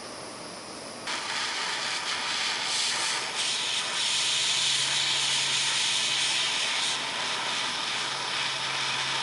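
A steady loud hiss, like a heating flame or blower, starts abruptly about a second in. It is melting scrap aluminium alloy, and a low steady hum joins it about halfway through.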